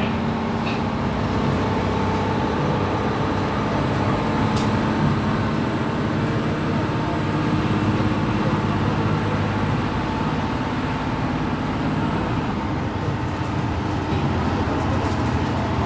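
Steady running noise of a KiHa E130 series diesel railcar, its engine and wheels on the rails heard from inside the passenger cabin.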